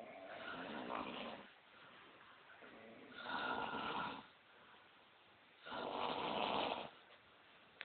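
A person snoring on purpose in a snoring contest: three drawn-out snores about every two and a half to three seconds, each lasting over a second, with quiet breaths between.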